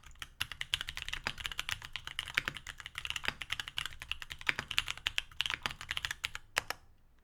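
Continuous fast typing on a mechanical keyboard with C³Equalz X TKC Kiwi tactile 67g switches on an aluminum plate, GMK keycaps, foam-dampened: rapid clacking keystrokes that stop just before the end.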